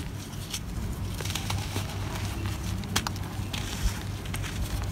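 Chunks of dry, compacted clay soil being crushed and crumbled in the hands: a steady grainy crunching and trickling of dust, with a few sharp cracks as pieces snap. A steady low hum runs underneath.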